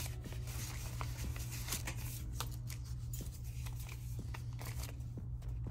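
Paper banknotes and a cash envelope being handled: light rustling with scattered soft clicks and taps, over a steady low hum.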